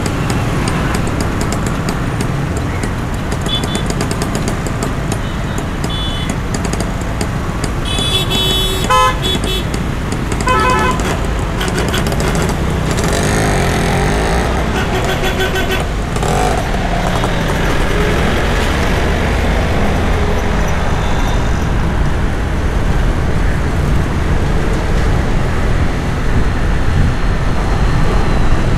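City street traffic: a steady wash of engine and tyre noise, with vehicle horns honking several times, the loudest and longest about nine seconds in and a cluster of honks between about thirteen and sixteen seconds.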